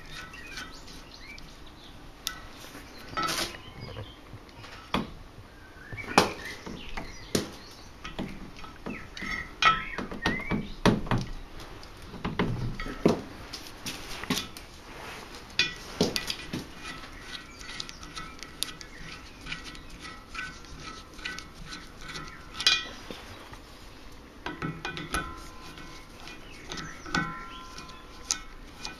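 Irregular clinks and knocks of a valve stem tool against a steel wheel rim as a tire valve stem is worked into the rim's valve hole, a few of them sharp and loud.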